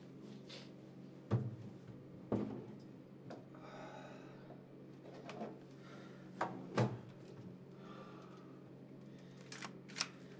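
A person rummaging through wooden furniture: several sharp knocks and clatters, four of them loudest, with soft rustling between, over a steady low hum.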